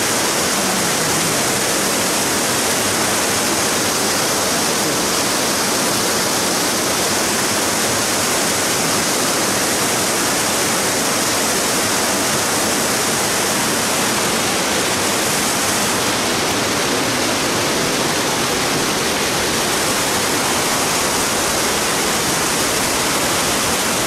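Steady, even rush of a tall waterfall, more than fifty metres high, pouring down a rocky cascade in several tiers.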